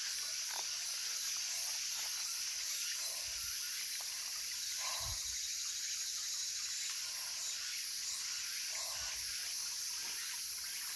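Small mountain stream trickling and gurgling steadily over rocks, with a few low thumps.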